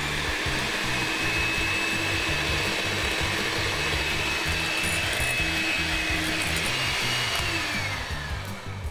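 Corded electric hand mixer running steadily, its beaters mixing cocoa powder into a whipped egg and sugar mixture in a glass bowl. The whine rises a little near the end, then falls away as the motor winds down.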